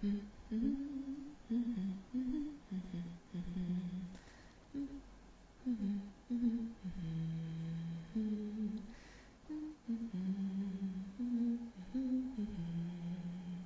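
A person humming a slow tune: a string of held low notes that step up and down, with short breaths between phrases.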